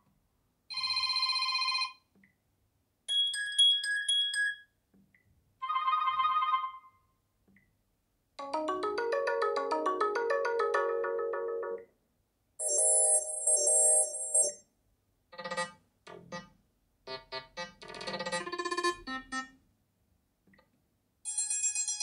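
Sony Xperia 1 VI phone playing short previews of its built-in ringtones, one after another. About eight different electronic tunes sound in turn, each lasting one to three seconds and cut off with a short silence before the next.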